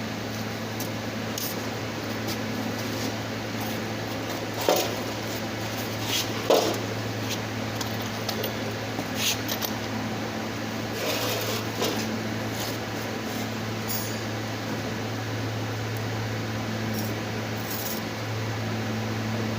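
Steady low electric hum of a running machine in a workshop, with a few short knocks and clinks of metal engine parts being handled; the loudest knocks come about five and six and a half seconds in.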